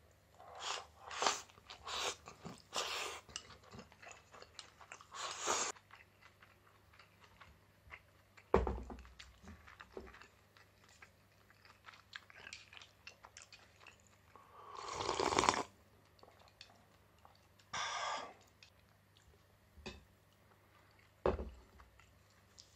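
Eating sounds at a table: a run of chewing and crunching in the first few seconds, a knock of tableware on the wooden table, then a longer sip of soup from a bowl about two-thirds of the way in, and another knock near the end.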